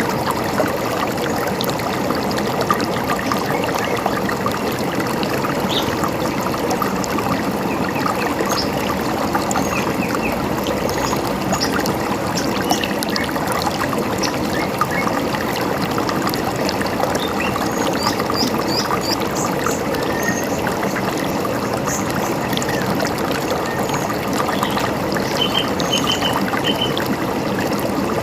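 A river running over stones, with a steady rush and gurgle, and small birds chirping briefly over it.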